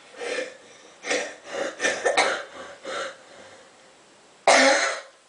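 A person making a run of short, rough throat sounds, with one much louder and longer one near the end.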